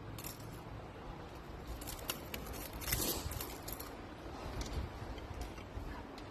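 A few short, light clicks and rattles of small hard objects, most of them in the middle, over a low steady rumble.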